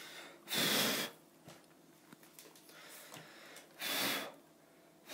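Short puffs of breath blown at a small wooden model-plane propeller to test that it spins freely. There are two puffs about three seconds apart, and a third starts at the very end.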